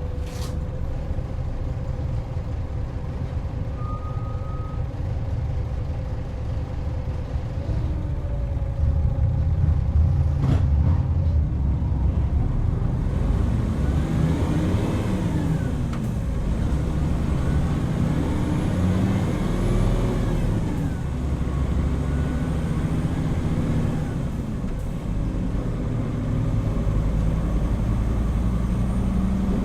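Hino Rainbow HR city bus heard on board while driving: the diesel engine runs with a steady low drone. It grows louder about ten seconds in, and its pitch rises and falls several times in the second half as the bus accelerates and changes gear. A click comes near the start and again about ten seconds in, and a brief tone sounds about four seconds in.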